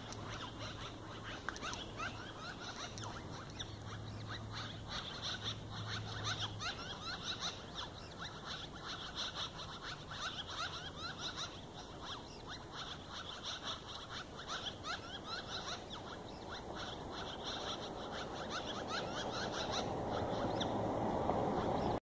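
Two birds calling back and forth with rapid, buzzer-like chirps, many short rising notes every second. Near the end a rushing noise swells up beneath them.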